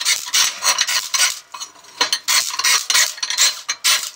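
Edges of drilled holes in a steel plate being chamfered: quick, uneven strokes of metal scraping and rasping on steel.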